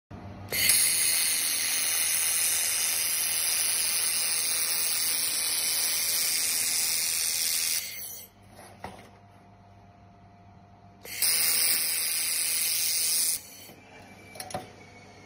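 Handheld fiber laser welder running a seam on 4 mm galvanized sheet: a loud, steady hiss for about seven seconds, then a pause, then a second run of about two seconds. A faint low hum continues underneath.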